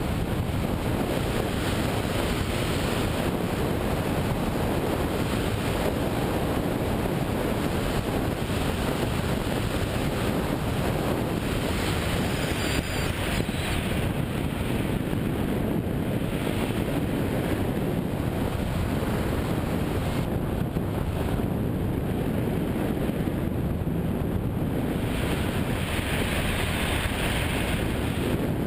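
Steady rush of wind over the microphone of a camera mounted on a hang glider in flight, briefly brightening and hissing more about halfway through and again near the end.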